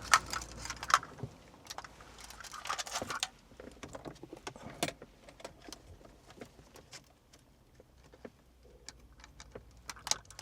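Plastic wiring connectors and cable looms being handled, with small clicks and rattles. There is a dense patch of rattling about three seconds in, then scattered light clicks.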